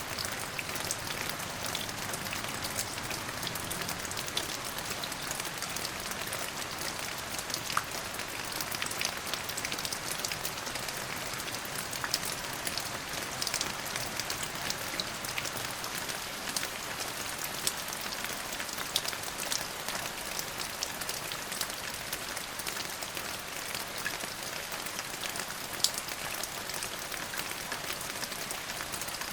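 Steady rain falling on a surface, an even hiss with many separate drop ticks, a few of them louder and sharper.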